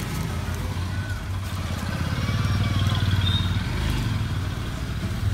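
Steady low hum of an engine idling.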